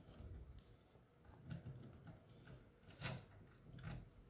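Near silence with a few faint ticks of a screwdriver against the metal terminals and bus bars of a generator alternator's diode rectifier plate.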